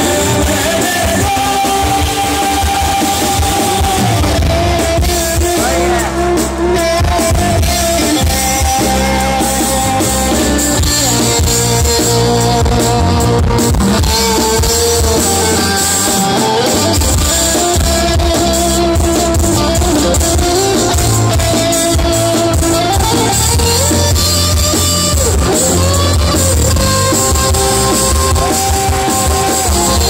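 Live rock band music with drum kit, bass guitar and electric guitar. A lead melody line glides between long held notes over a steady beat.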